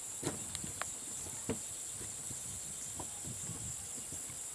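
Steady evening chorus of crickets, one even high-pitched shrill, with a few faint clicks and taps from the rifle and bipod clamp being handled.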